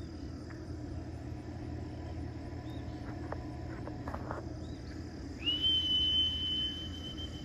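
A single long, steady high whistle, held for about three seconds from about five seconds in, rising quickly into the note and dipping slightly as it ends. Beneath it, a steady low hum and faint outdoor background.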